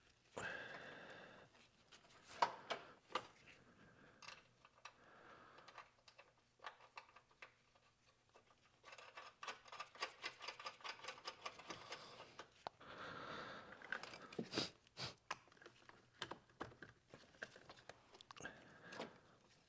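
Faint handling noises: scattered clicks, taps and rustling, with a run of rapid clicking about nine to twelve seconds in.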